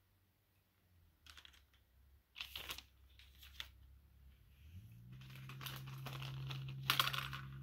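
Plastic model-kit parts and their clear bag being handled, giving short bursts of crinkling and clicking with a louder rustle near the end. About five seconds in, a low steady hum starts up underneath.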